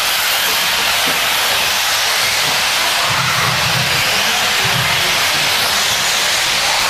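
Steady hiss of electric 1/8-scale RC buggies racing on a dirt track, their motors running and tyres working the loose dirt.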